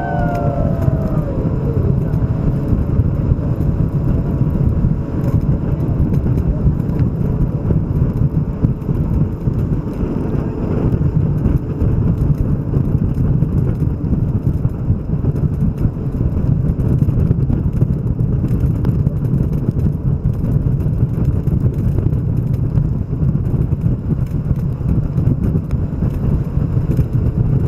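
Steady, loud low roar aboard a motorboat tour boat, its engine, the wind and the rushing water blending into one continuous noise.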